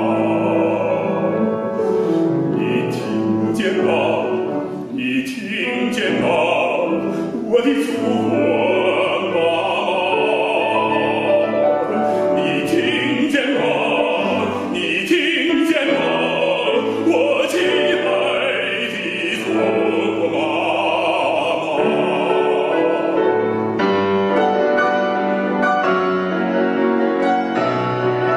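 A male operatic bass singing with wide vibrato, accompanied by a grand piano. About 23 seconds in the voice stops and the piano plays on alone.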